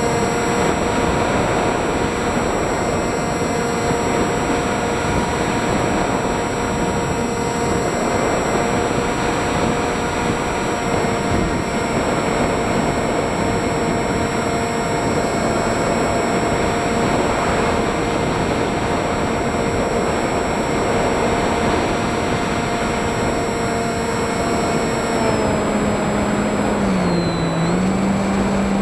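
FPV drone's electric motors and propellers running in flight, a steady whine over rushing noise. The motor tones drop in pitch about 25 seconds in, dip once more, then settle lower as the throttle eases.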